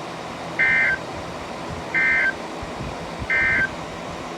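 Emergency Alert System end-of-message signal: three short, identical bursts of buzzy digital data tones, about a second and a third apart, over a steady background hiss. It marks the close of the broadcast warning.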